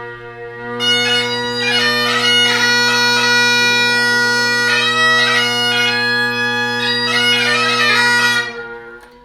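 Great Highland bagpipe playing: the drones are sounding, the chanter comes in about a second in with a short melody, and near the end the chanter stops and the drones die away.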